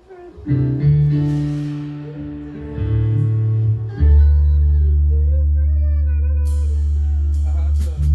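Live band music at a sound check: sustained chords come in about half a second in, a deep bass note joins about four seconds in, and a voice sings over it.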